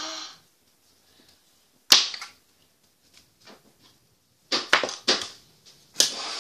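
Sharp clicks and clatters of plastic makeup items being handled and knocked together: one about two seconds in, a quick run of several a little later, and another near the end.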